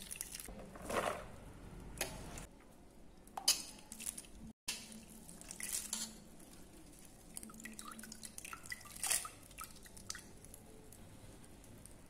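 Water dripping and trickling off handfuls of soaked vermicelli noodles lifted out of a metal pot of water to drain, with a few brief splashes.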